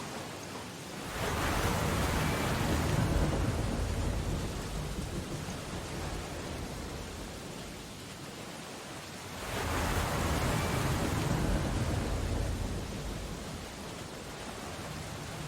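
Steady rain on window glass, with storm surf outside: two big waves crash and wash out, one about a second in and another about nine seconds in, each swelling quickly and fading over a few seconds.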